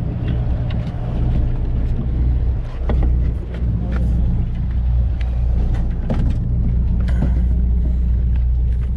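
Boat engine running with a steady low drone, with scattered light clicks and knocks on top.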